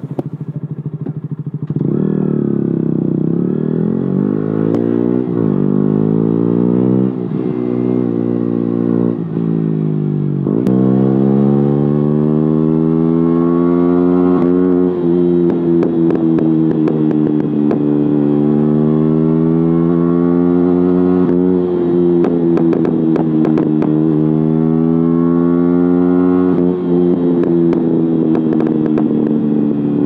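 KTM Duke 125's single-cylinder four-stroke engine through a de-baffled Akrapovic exhaust, quiet for the first couple of seconds, then pulling away and being ridden hard. The engine note repeatedly rises and falls with the throttle.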